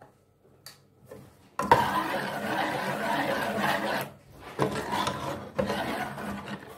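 A long-handled spoon scraping and stirring thick saag against the bottom of an aluminium pot. It comes as one long scraping stretch followed by two shorter strokes.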